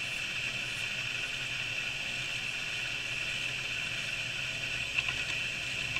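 Steady hiss, with one faint click about five seconds in.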